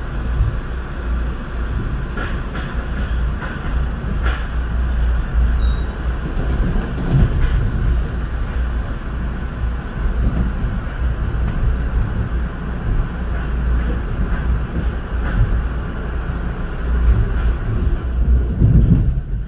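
Metro-North commuter train running, heard from inside the passenger car: a steady low rumble with a few faint clicks from the track, swelling louder briefly near the end.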